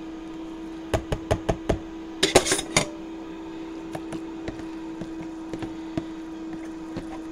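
Metal potato masher knocking and scraping against a plastic bowl of boiled potatoes and milk: a quick run of about five knocks, then a louder scraping clatter, then lighter taps, over a steady hum.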